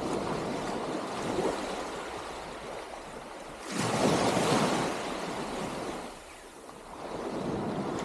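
Small sea waves lapping and washing onto a sandy shore, with some wind on the microphone. A louder surge of wash comes in about four seconds in, then eases.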